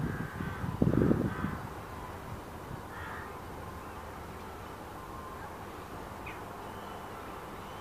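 Harsh bird calls, loudest and most clustered in the first two seconds, then a shorter call about three seconds in. Faint chirps follow over a steady outdoor hiss.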